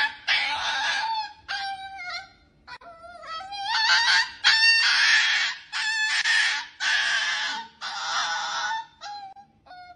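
Toy poodle screaming in a string of harsh, high-pitched cries, each half a second to a second and a half long, in protest at having its nails clipped. The cries grow shorter and quieter near the end.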